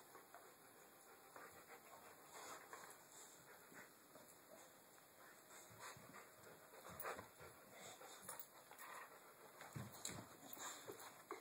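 Two dogs, a boxer and a smaller dog, playing with a rope toy: quiet panting with soft scuffling and rustling as they mouth the rope and each other, a few low thumps near the end.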